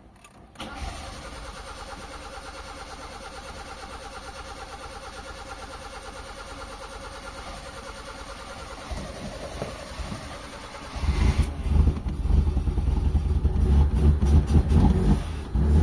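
Mitsubishi Lancer 4G13 four-cylinder petrol engine cranking on its starter motor for about ten seconds with a steady, even pulse, then catching and running unevenly. The long crank is the engine drawing fuel through a newly fitted, still-empty fuel filter to a freshly cleaned carburettor, on an engine that is hard to start.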